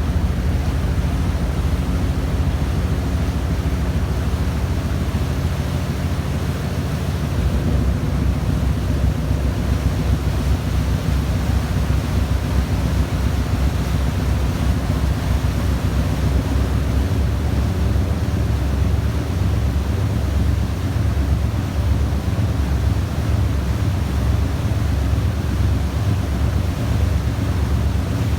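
A steady low engine drone with wind rushing over the microphone; the hum shifts slightly about seven seconds in.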